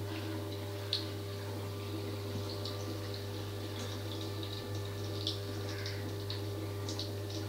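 Battered egg pieces deep-frying in oil in a small kadai: a steady sizzle with scattered crackles and pops, over a steady low hum.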